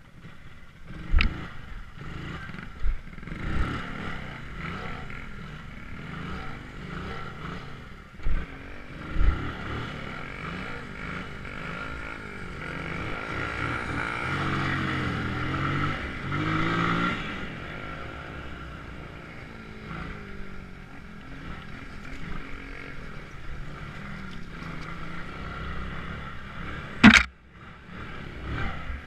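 A vehicle engine running as it travels fast over a rough dirt road, its pitch rising and falling about halfway through. Several thumps in the first ten seconds and one sharp, loud bang near the end.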